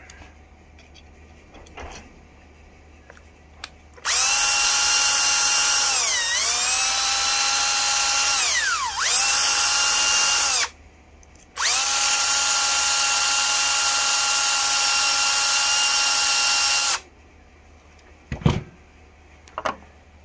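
Power drill running in two long runs of about six seconds each, its motor dipping briefly under load partway through the first, as the bit ovals out a mounting hole in the dash for the washer switch posts. A couple of small knocks follow near the end.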